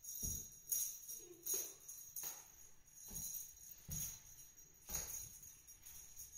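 A small bell on a cat wand toy jingling as the toy is waved back and forth, in repeated shakes a little under a second apart.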